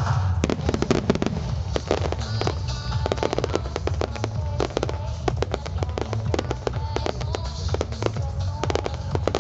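A rapid, dense barrage of aerial firework shells bursting and banging several times a second, with crackling, over music with a heavy bass playing alongside the display.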